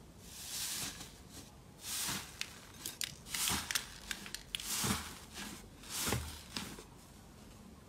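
Hands pressing into a bowl of thick slime and tearing its dried top skin, giving crackling, tearing sounds with small pops. There are about five separate presses, one every second and a half or so.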